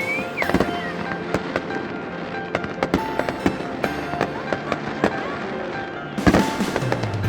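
Fireworks popping and crackling in quick succession, with a louder bang about six seconds in.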